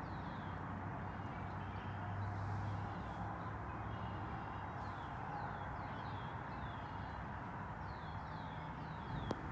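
A bird calling in short runs of quick falling chirps, several times, over a steady low hum of outdoor background noise; a single sharp click near the end.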